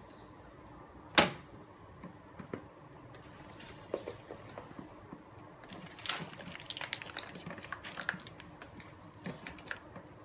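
Handling sounds from a plastic knapsack sprayer: one sharp knock about a second in, then a run of small clicks and rustles as its shoulder straps and plastic tank are moved about.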